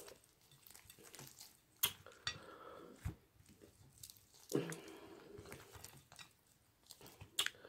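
Close-up eating sounds of fried chicken: quiet chewing with scattered sharp smacks and crackles from the crispy breading as the pieces are torn apart by hand, and a short hum about halfway through.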